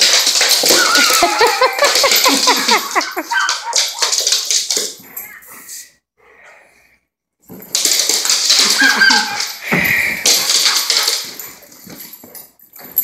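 A dog whining and yipping excitedly while chasing a laser dot, with claws clicking and scrabbling on a laminate floor. It comes in two bouts with a short pause near the middle.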